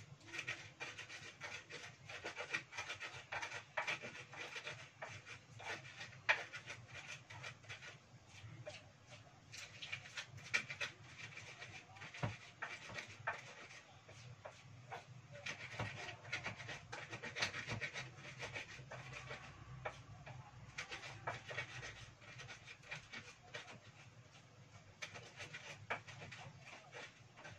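Stone pestle (ulekan) grinding and pounding spices in a small mortar (cobek): a run of irregular knocks and scraping strokes.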